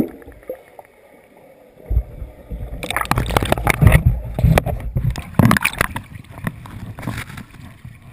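Water heard through a submerged action camera's housing. It starts as a muffled underwater hush with a single dull thump. From about three seconds in come dense bubbling, splashing and knocks on the housing as a swimmer grabs the camera and brings it up through the surface.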